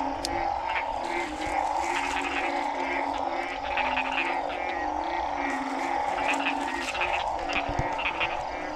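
Frog chorus: many frogs calling over one another, with low repeated croaks under a steady, higher, dense trilling.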